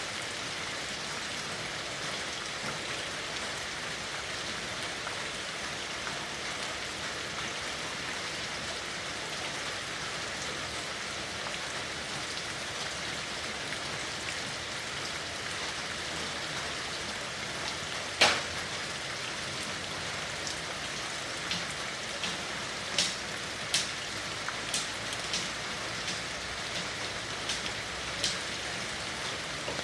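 Steady rain falling, an even hiss. In the latter half, individual large drops land sharply and irregularly on a surface, one of them much louder than the rest.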